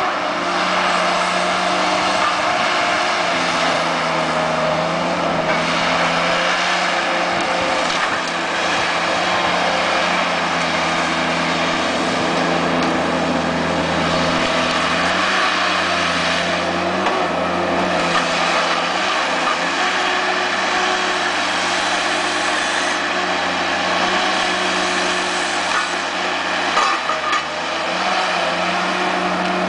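Tigercat harvester's diesel engine and hydraulics running continuously under load as its Waratah 624 Super head works pine logs. The pitch of the machine shifts up and down as the head and boom move.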